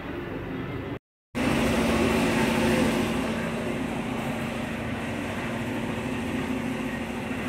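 Steady mechanical hum of workshop background noise with a low steady tone, broken by a short silent gap about a second in where the audio cuts.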